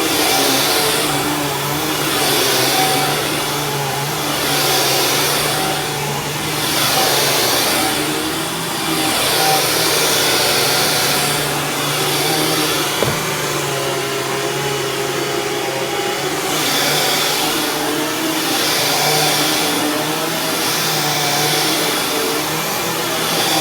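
Dirt Devil Ultra Vision Turbo upright vacuum running continuously, its motor hum steady while the suction hiss swells and fades about every two seconds as it is pushed back and forth.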